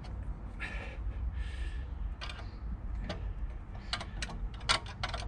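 Sharp clicks and knocks at irregular intervals, about a dozen, as a bolted-on aluminium rudder on an outboard engine's leg is pushed and worked by hand, over a low steady rumble.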